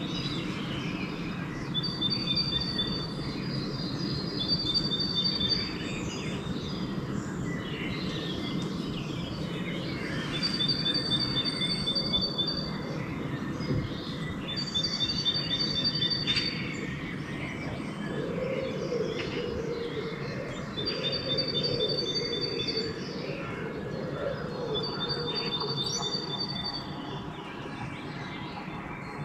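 Dawn chorus of several songbirds chirping and singing, with a high, even two-note phrase repeating every few seconds. From about two-thirds of the way in, a low wavering pigeon coo joins, over a steady low background rumble.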